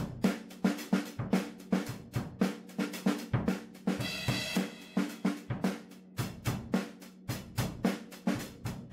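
A Stagg drum kit being played: a steady, fast beat of bass drum, snare and hi-hat strokes, with the drums ringing low under the hits. About four seconds in, a cymbal rings out for nearly a second.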